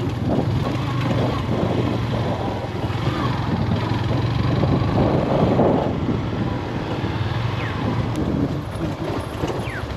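Yamaha FZ-S motorcycle's single-cylinder engine running steadily at low speed, heard from the rider's seat.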